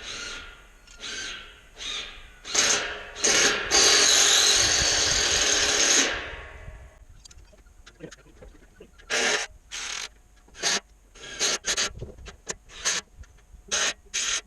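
Power drill driving screws: one long run of a few seconds, then a string of short trigger bursts near the end.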